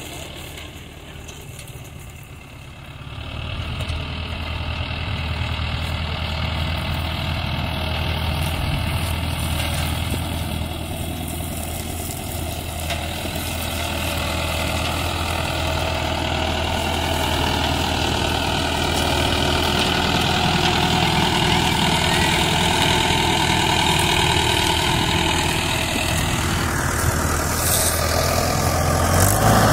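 Mahindra 575 tractor's diesel engine running steadily as it pulls a trailer. It is quieter for the first few seconds, then grows steadily louder, and the tone shifts slightly near the end.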